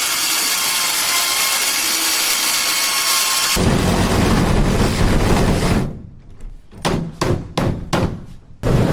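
A power tool runs steadily for several seconds, its sound changing partway through. It is then run in about five short bursts near the end.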